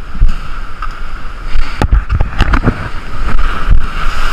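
Heavy ocean surf washing over rocks, with wind buffeting the microphone and several sharp knocks scattered through the sound.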